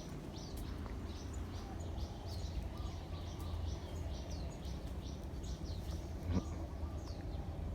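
Small birds chirping, a string of short high chirps a few times a second, over a steady low rumble of outdoor background noise. A single brief knock a little past six seconds in.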